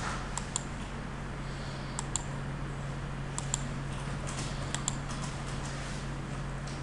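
Scattered clicking at a computer, mostly in pairs a fraction of a second apart, with a quick run of clicks in the middle, over a steady low hum and hiss.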